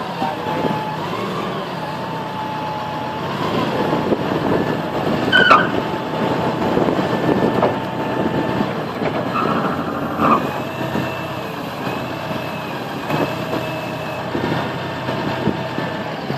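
Hyster container top loader's diesel engine running as the machine drives and turns, with a wavering whine over the engine note. Two short sharp sounds stand out, about five and ten seconds in.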